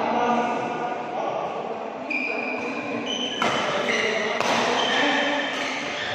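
Badminton rally in a large hall: rackets strike the shuttlecock three times, about a second apart, in the second half. Short high squeaks of court shoes on the mat come in between.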